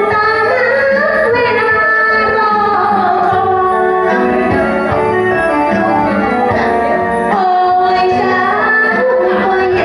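A woman singing karaoke into a microphone over a backing track, her voice amplified and carrying a sustained, gliding melody over keyboard accompaniment.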